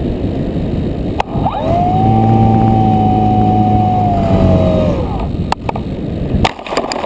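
FPV multirotor's motors and propellers: a rushing noise, then about a second and a half in a whine glides up to a steady pitch with a low hum under it, holds for about three seconds and glides down. Several sharp clicks and knocks follow near the end.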